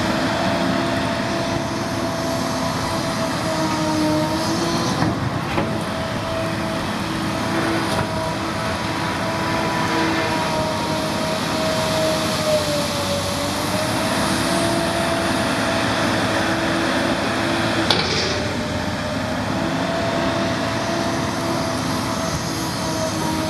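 Excavator's diesel engine and hydraulics running steadily at work, with a whine that wavers slightly in pitch as the load changes. Two sharp clanks, about five seconds in and again later.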